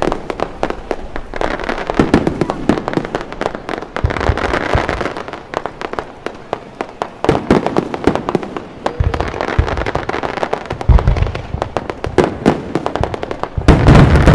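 Fireworks display: dense crackling and popping of bursting shells over a hiss, with heavy booms about two, four, nine and eleven seconds in and the loudest burst of booms near the end.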